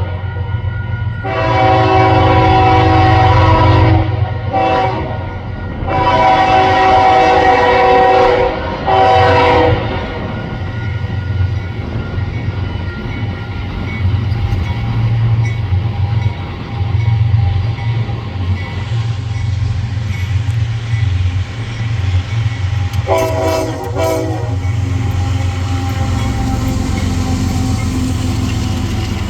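Union Pacific locomotive's multi-tone air horn sounding a long blast, a short toot, another long blast and a short toot, over the low rumble of the passing train. Later come two quick toots in a row while the train keeps rolling past.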